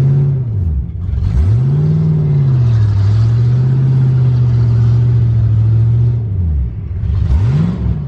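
1992 Chevrolet Camaro's engine under way, its revs climbing and falling about a second in, holding steady, then dropping and briefly climbing again near the end, as the car is driven on a failing transmission.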